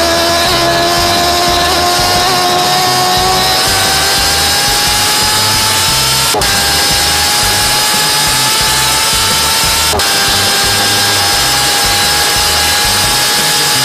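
Kawasaki H2 motorcycle engine running hard at high revs on the highway, a loud high-pitched whine that climbs slowly in pitch. The tone breaks briefly twice, about six and ten seconds in, stepping down slightly before climbing again.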